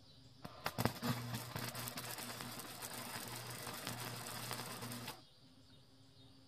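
Electric arc welding on steel bed-frame angle iron. The arc strikes with a few sharp pops about half a second in, then runs as a steady crackling sizzle over a low even buzz for about four and a half seconds, and cuts off suddenly.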